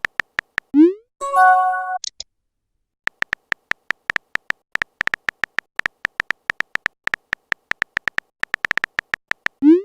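Synthesized electronic sound effects: a quick rising pop about a second in and a short chime, then a long run of quick, unevenly spaced beeps all at one pitch.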